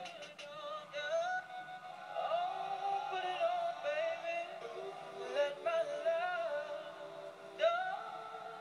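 Sing-song vocal melody of long, wavering notes, sometimes with two pitches sounding at once.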